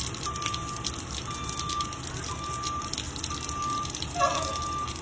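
School bus backup alarm beeping about once a second over the patter of rain, with one short, louder tone about four seconds in.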